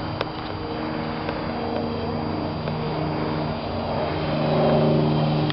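Radio-controlled foam trainer plane flying overhead, its motor and propeller droning steadily with small shifts in pitch. It grows louder about four seconds in as the plane comes closer. A short click just after the start.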